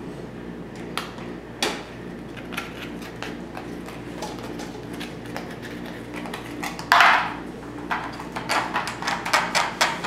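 Small tools and objects being handled on a tabletop: scattered knocks and clinks, a brief louder rustle about seven seconds in, then a quick run of light clicks, over a steady low hum.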